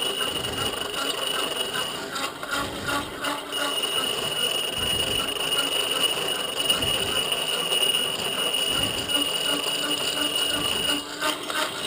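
Hand-cranked grinder with a 5-inch grinding wheel turning as it is cranked, the wheel grinding a steel cold chisel with a steady high squeal. The squeal breaks off briefly about two seconds in and again near the end.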